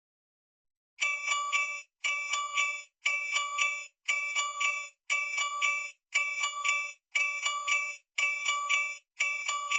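Alarm clock ringing in short repeated bursts, about one a second, starting about a second in and going on nine times.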